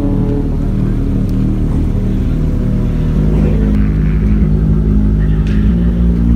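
Ford Mustang exhaust running at low revs with a deep, steady note as the car rolls slowly past. The pitch steps up a little about three seconds in.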